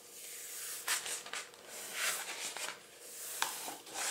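Paper being peeled off the adhesive surface of a Silhouette cutting mat as the plastic mat is bent back: a few rustling, crackling swells with sharp ticks.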